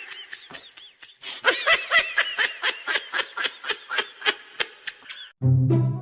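A person laughing in a rapid run of short, high giggles, about five a second, that trails off. Music starts near the end.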